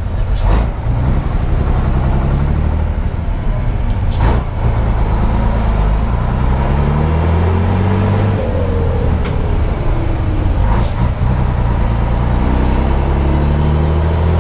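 Scania 112's turbocharged diesel engine pulling hard as the truck accelerates through the gears. The engine note climbs, falls back at a gear change about eleven seconds in, then climbs again, with a faint rising turbo whistle above it. A few short sharp noises come at the shifts.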